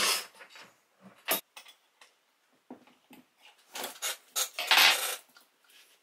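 Chainsaw parts handled during assembly, as the guide bar and chain are fitted to the saw body: irregular metallic clinks, clicks and rattles, with a sharp click a little over a second in and a longer, louder rattle about four to five seconds in.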